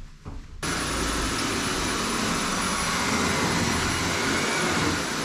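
Vacuum cleaner switched on about half a second in, then running steadily, loud.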